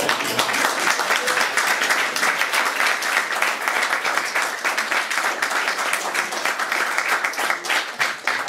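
A room of dinner guests applauding, many hands clapping in a dense, steady patter.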